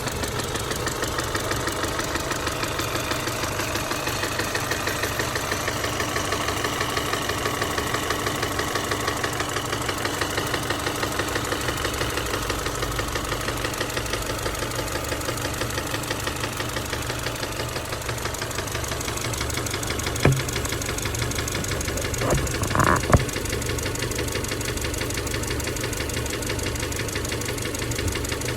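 Subaru EJ253 2.5-litre flat-four engine running steadily with a rhythmic knocking from the middle of the engine, a possible rod knock. A few sharp clicks stand out about twenty seconds in, once and then two or three close together.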